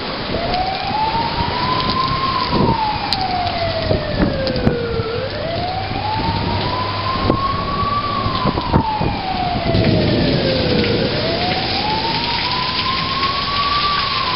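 Steady rain pouring down on flooded pavement, with a siren wailing over it. The siren rises and falls slowly, about every five to six seconds, three times.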